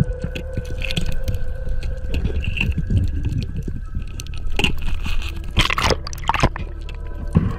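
Underwater water noise with dense crackling clicks and a low rumble as a diver works on a rocky reef. Louder rushing bursts come at about four and a half seconds, from five and a half to six and a half seconds, and near the end.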